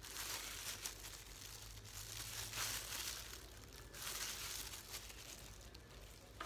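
Disposable plastic gloves crinkling as a gloved hand works a metal hand-held lime squeezer, pressing juice from a lime half. The faint rustle swells three times.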